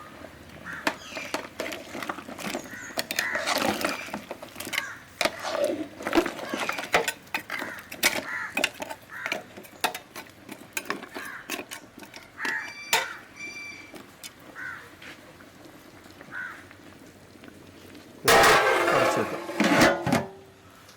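A spoon stirring a pot of simmering beef trotter curry, with repeated clinks and scrapes against the pot. A louder rushing noise lasts about two seconds near the end.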